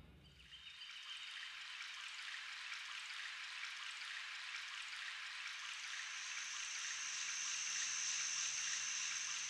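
Soft, even hiss like rain or running water, slowly growing louder, with a faint high steady tone joining it about halfway through.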